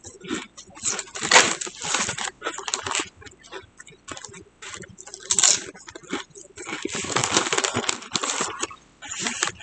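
Crunchy chewing of Lay's potato chips, with the foil chip bag crinkling as it is handled.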